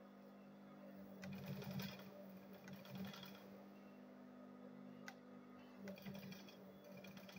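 Sewing machine stitching a zip onto leather, running in short spurts over a steady motor hum.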